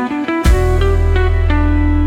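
Background music with plucked guitar notes over a sustained bass.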